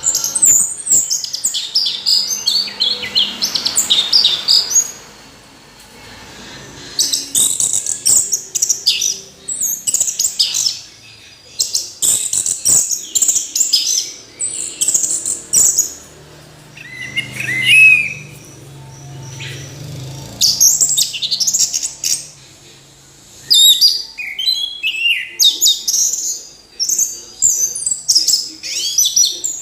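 Orange-headed thrush (anis merah) singing: bouts of fast, varied high notes lasting a few seconds each, broken by short pauses.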